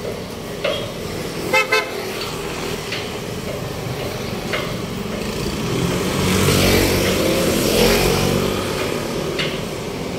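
Street traffic: a vehicle horn toots twice in quick succession about a second and a half in, and a few seconds later a passing vehicle's engine swells and fades.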